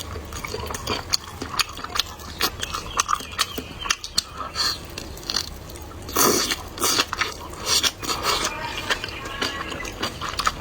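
Close-miked eating: chewing with many short wet clicks and mouth smacks, and a louder burst about six seconds in.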